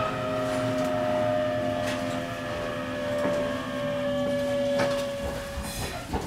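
E127 series electric train's traction motors whining as heard from the cab, the pitch falling slowly as the train slows before fading out about five seconds in. A few sharp clicks near the end.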